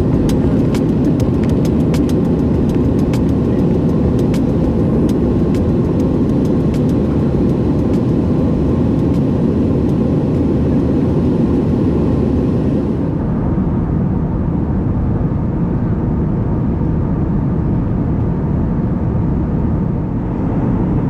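Airbus A320 noise heard inside the cabin: a loud, steady rumble of engines and airflow, with many light clicks or rattles through the first half. About halfway through, the hiss above it drops away abruptly while the rumble goes on.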